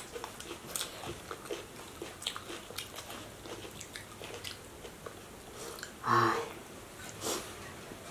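Close-up eating sounds of fried fish and rice being chewed: small wet clicks and smacks, scattered and irregular. About six seconds in, one of the eaters makes a short vocal sound, the loudest thing here.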